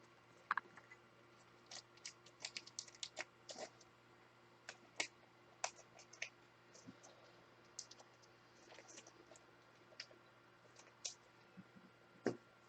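Faint, irregular small clicks and taps from hands at work, about a dozen scattered through the stretch with no steady rhythm.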